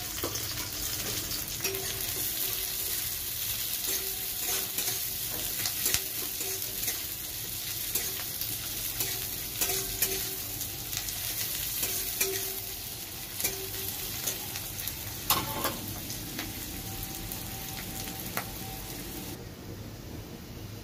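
Sliced onions sizzling as they fry in hot oil in a kadai, with a metal spatula stirring them and clicking against the pan now and then.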